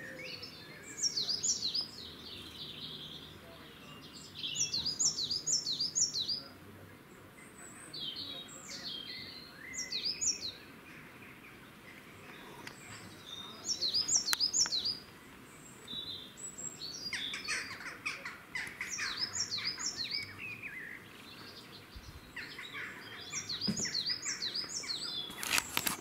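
Coal tit singing: short bursts of quick, high, repeated notes, each falling in pitch, coming every few seconds. A brief knock near the end.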